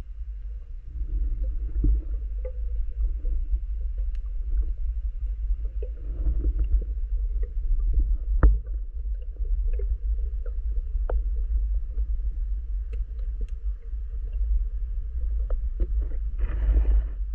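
Underwater sound of a diver swimming, heard through the camera's housing: a steady low rumble of water moving past, scattered small clicks and knocks, a sharper knock about halfway, and a short rush of noise near the end.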